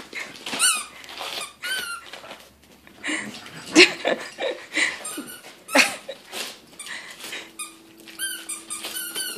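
A dog's rubber squeaky toy squeaking again and again as the dog bites and chews it, each squeak a short, high, rising-then-falling squeal. The squeaks come in twos and threes, with a quick run near the end.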